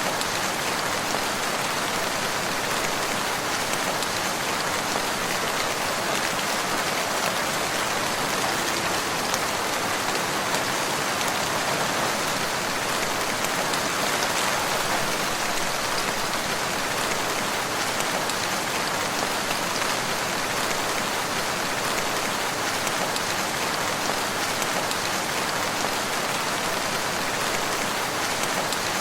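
Steady rain falling and pattering on surfaces, an even hiss of countless drops with no thunder or distinct events.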